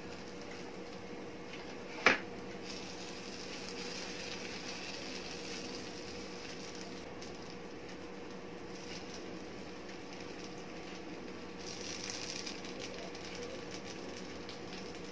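Dosa sizzling faintly on a hot tawa while a spoon scrapes over it, spreading red chutney, with a faint steady hum underneath. A single sharp knock about two seconds in.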